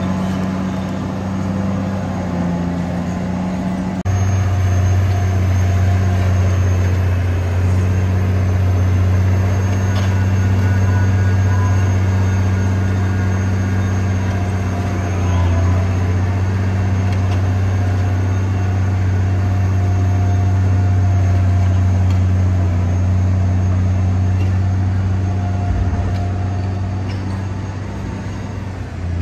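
Caterpillar D9T bulldozer's C18 diesel engine running under load with a steady deep hum, which gets louder about four seconds in and holds.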